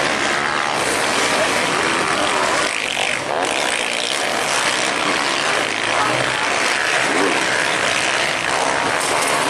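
Several motocross bikes' engines running hard and revving, the pitch rising and falling as riders open and close the throttle.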